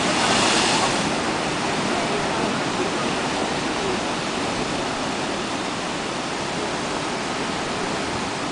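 Atlantic waves surging into a narrow rock crevice: a hissing rush of spray in the first second or so, then a steady wash of surf over the rocks.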